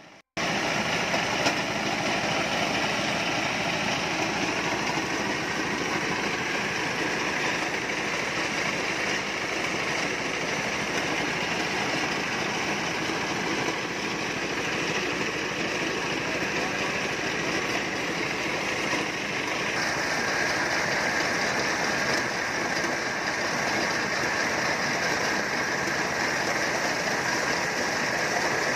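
Engine-driven corn sheller running: the small engine and the belt-driven shelling drum make a steady, continuous mechanical din. It turns brighter and harsher from about twenty seconds in.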